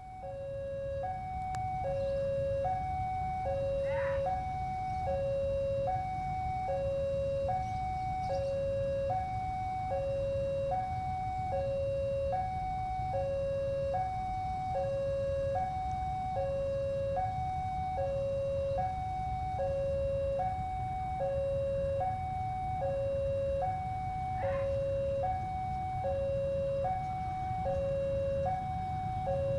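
Railway level-crossing warning alarm sounding a steady two-tone hi-lo signal, each tone held just under a second, over the low rumble of passenger trains running past on the tracks.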